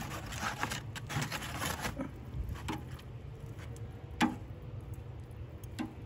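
Rustling handling noise, then a few sharp metallic clicks, the loudest about four seconds in, from the sliding metal draft-door plate at the base of a Primo ceramic kamado grill being handled.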